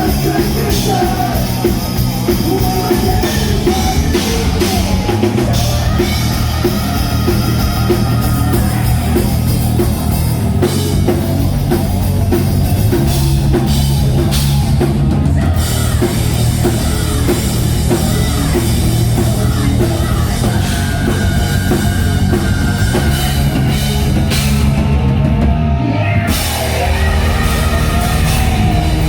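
Live rock band playing loudly, with a driving drum kit under the full band.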